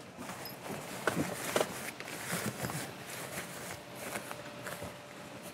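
Rustling of tent fabric with scattered light clicks and knocks as the side fabric of an iKamper Skycamp 2.0 hardtop roof tent is tucked in by hand while the tent is being closed.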